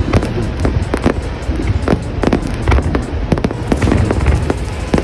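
Aerial fireworks bursting in a rapid, continuous string of loud bangs and crackles, several a second, over a dense low rumble.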